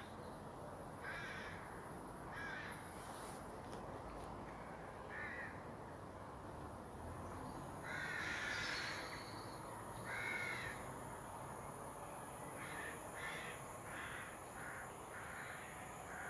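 A bird calling repeatedly in short calls, about a dozen in all, with a longer call about eight seconds in and a quick run of calls in the last few seconds, over faint steady background noise.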